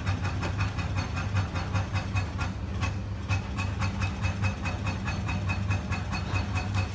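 A machine running steadily with a low hum and a fast, even pulse.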